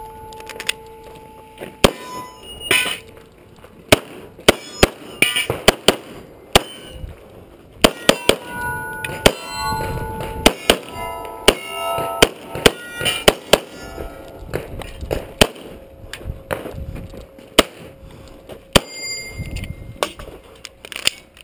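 A Beretta 92A1 9 mm pistol fires a string of rapid shots at irregular intervals. Many shots are followed by the short ringing clang of steel targets being hit.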